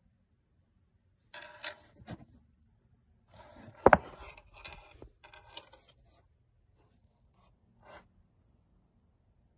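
Handling noise from a phone being picked up and repositioned: rubbing and scraping against the microphone, with one sharp knock about four seconds in and a short scrape near the end.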